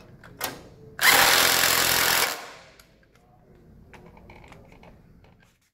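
Ridgid cordless impact driver hammering a bolt tight for about a second, driving it all the way down. A few faint clicks follow near the end.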